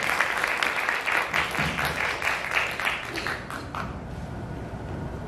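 Audience applauding in a room, the clapping fading away about four seconds in.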